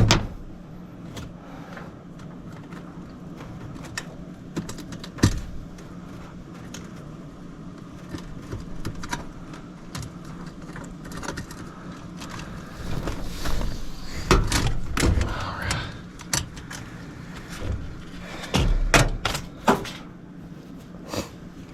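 Hands and tools working on wiring in an air handler's electrical cabinet: scattered clicks, taps and knocks, with busier clusters about two-thirds of the way in and near the end, over a steady low hum.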